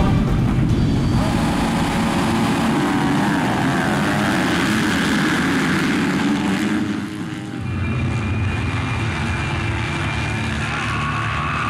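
A pack of motocross bikes revving hard off the start and accelerating away together, many engines overlapping with rising and falling pitch. About two-thirds of the way through the sound dips briefly, then a steadier engine drone follows.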